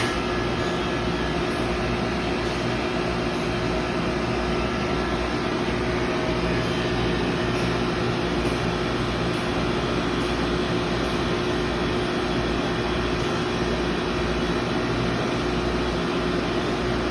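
Industrial R410a dual-circuit water chiller running steadily on test, a constant mechanical hum with a steady mid-pitched tone.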